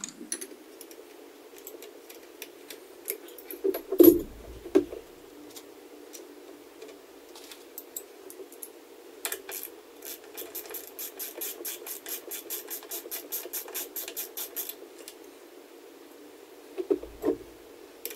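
A ratchet wrench clicks in a rapid, even run of about five or six clicks a second for several seconds as it is worked on a bolt of the outboard's powerhead. Metal knocks and taps of the tool against the engine come before and near the end.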